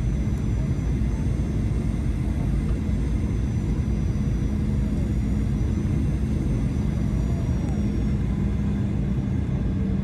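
Steady low rumble of a vehicle, with a constant low hum running through it.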